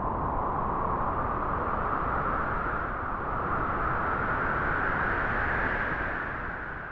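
Wind blowing through grass: a steady rushing that slowly swells and eases, with a low rumble of wind on the microphone.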